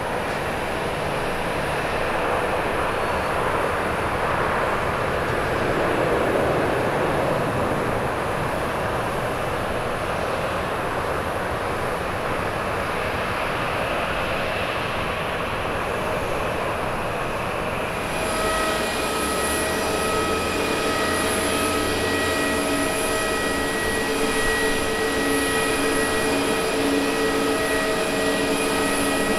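Distant jet roar from a Boeing 737 moving along the runway: it swells about six seconds in, then eases. About two-thirds of the way through it gives way to the closer engines of a Boeing 777 taxiing, a steady high whine in several tones over a low rumble.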